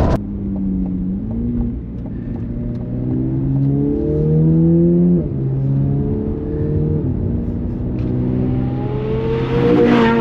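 Corvette C8 Z06's 5.5-litre flat-plane-crank V8 with a modified exhaust, accelerating under load. The engine note climbs and falls sharply at upshifts about five and seven seconds in, then climbs and gets louder again near the end.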